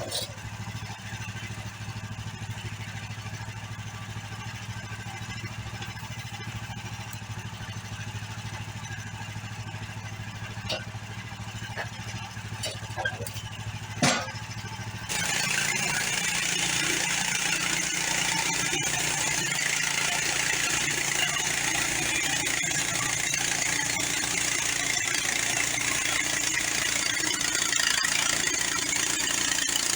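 Portable band sawmill's engine idling steadily, with a few light clicks and a sharp clank about halfway through; right after, it throttles up and runs loud and steady with a dense high hiss as the band blade runs.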